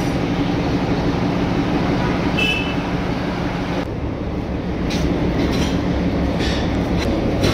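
NDM6 diesel locomotive of the Darjeeling Himalayan Railway running with a steady low engine drone as it is brought up slowly to the coaches for coupling. A brief high squeal comes about two and a half seconds in, and a few light knocks follow near the end.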